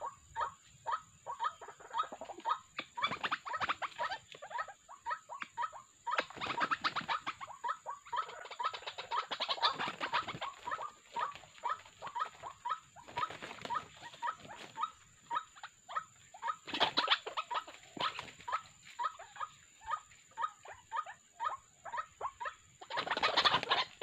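White-breasted waterhens calling: a rapid run of short croaking notes, about three a second, with louder, harsher stretches every few seconds.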